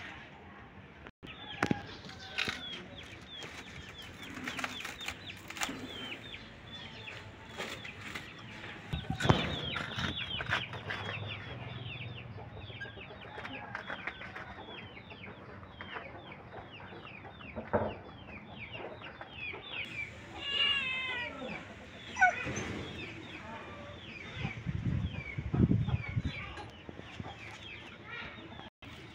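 Chickens clucking, with a dense run of short, high, falling cheeps throughout and a few louder thuds.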